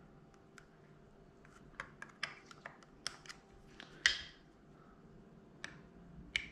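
Faint, scattered light clicks and taps of small metal parts as the throttle butterfly of a Bing CV carburettor is turned and centred on its shaft and a screwdriver is handled; the sharpest click comes about four seconds in.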